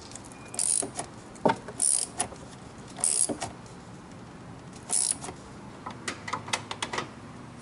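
Hand ratchet tightening a hose clamp at the throttle body. The ratchet clicks in four short runs about a second apart, then gives a string of separate clicks near the end.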